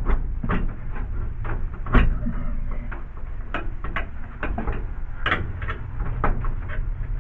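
Irregular clicks and knocks of a light fixture being handled against its electrical box while the mounting holes and screws are lined up, the sharpest knock about two seconds in, over a steady low hum.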